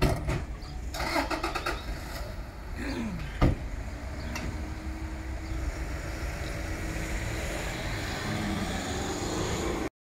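An SUV's engine starting and running steadily as the vehicle pulls away, its note slowly rising. A sharp click comes at the start and a loud knock about three and a half seconds in.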